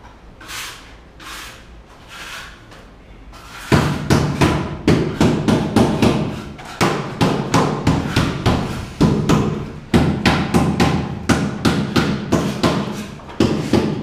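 Background music: soft swells at first, then from about four seconds in a steady percussive beat over a held bass line.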